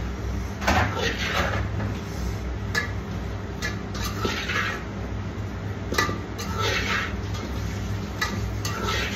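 Steel spoon scraping and clinking against a stainless steel bowl while stirring popped amaranth into sticky jaggery syrup. The scrapes come irregularly, every second or so, with one sharper clink about six seconds in, over a steady low hum.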